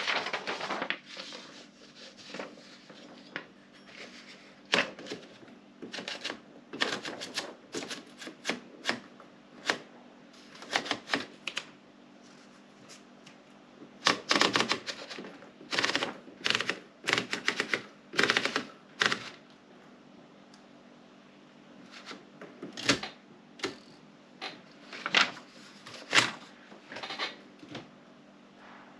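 Woodstock No. 5 manual typewriter being typed on: irregular runs of sharp key strikes, with two pauses of a couple of seconds in the middle.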